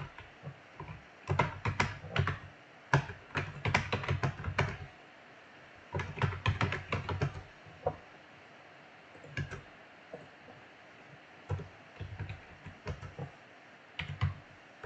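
Typing on a computer keyboard: runs of quick keystrokes in several bursts, with short pauses between.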